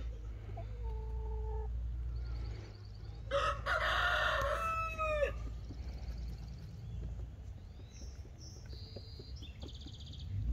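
A rooster crowing once, about two seconds long, a few seconds in, ending on a falling note. Small birds chirp faintly around it.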